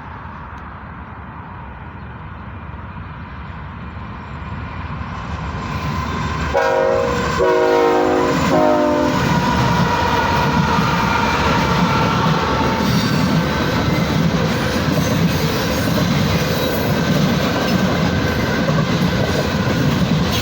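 GE ES44C4 diesel locomotives leading a freight train: a rumble growing louder as the train approaches, then three short blasts of the locomotive's air horn about six and a half seconds in. The train then passes close with a steady rumble of engines and wheels on the rails and a thin wheel squeal.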